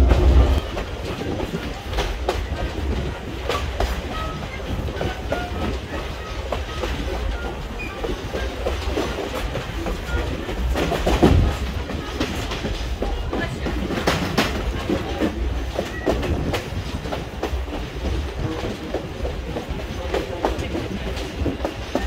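Railroad train rolling along the track: a steady low rumble with wheels clicking irregularly over rail joints, swelling louder about halfway through.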